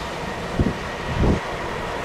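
Steady jet roar and hiss of a TAP Air Portugal Airbus A330 on a soaked runway, with about three low thumps of wind gusting on the microphone.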